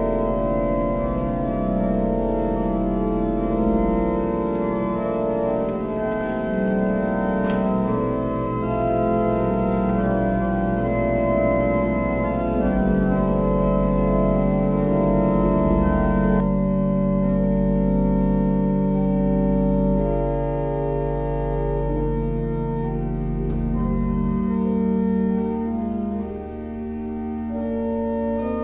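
Organ music: slow, sustained chords changing every few seconds over a low pedal note that drops out about 24 seconds in.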